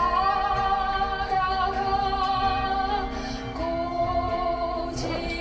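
A woman singing a Korean folk ballad with instrumental accompaniment, holding two long notes with a slight vibrato: the first lasts about three seconds, the second starts just past halfway.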